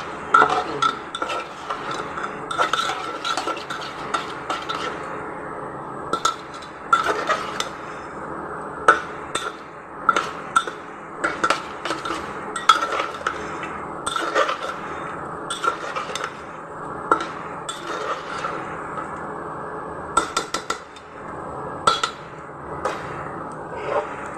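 Metal spoon stirring in a cooking pot, with irregular clinks and scrapes of metal against metal.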